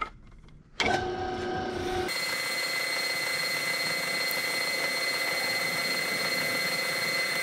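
Metal lathe switched on about a second in, running with a steady high whine. From about two seconds a sanding block is held against the spinning jet-engine nozzle, adding a steady abrasive hiss as it refinishes the salt-corroded metal.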